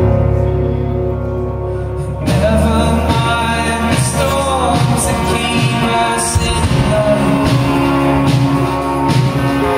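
A rock band playing live with singing, recorded from the crowd. Held low notes for the first two seconds, then the full band comes in with drums and vocals.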